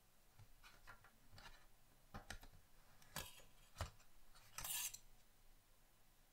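Hands handling a thin photo-etched metal fret and its card backing: a few faint light clicks and rustles, with a short rustle a little before the five-second mark.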